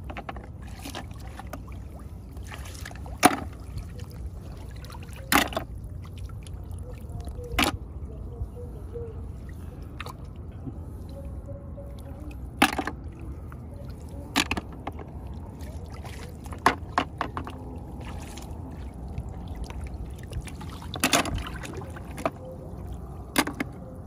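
Snails being picked by hand from shallow water among rice straw: light splashing and dribbling water, with sharp knocks every few seconds, irregularly spaced, as snail shells strike the plastic bucket and one another.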